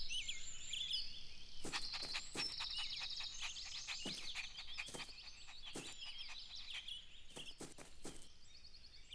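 Quiet outdoor ambience of birds chirping and trilling, with a few scattered light taps.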